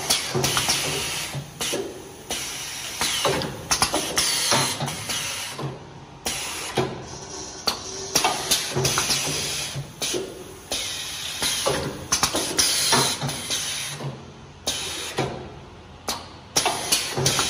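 Paper cake-box forming machine running: sharp mechanical clacks roughly once a second over a steady hiss of air.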